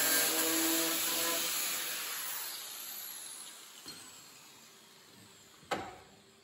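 Angle grinder with a sanding disc grinding the edge of a sheet-steel patch panel to trim it to fit. It is then switched off and winds down, its whine falling in pitch as it fades. A light knock comes about four seconds in, and a sharper knock near the end as the steel patch is set back in place.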